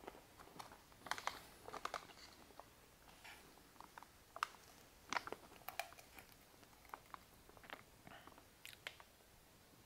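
Faint crinkling and rustling of a foil-lined paper food pouch being handled and tipped, with scattered soft clicks as rehydrated chicken and rice slides out into a glass measuring cup.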